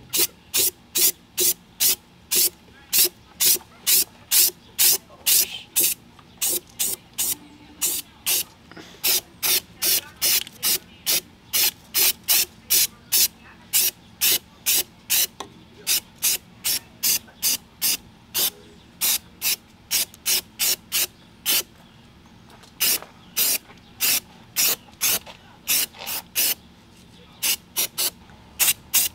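Aerosol can of Rust-Oleum Pro Grade rubberized undercoating spraying in short hissing bursts, about two a second, with a few brief pauses.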